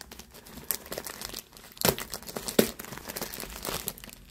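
Clear plastic bag crinkling as a skein of yarn is handled in it, a run of irregular crackles with two louder ones near the middle.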